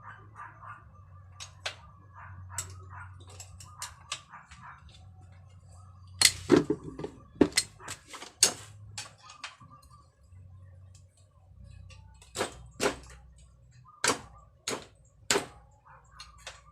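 Irregular sharp knocks and clacks of tools and bicycle parts being worked on, loudest in two clusters, one a little before the middle and one near the end, over a low steady hum.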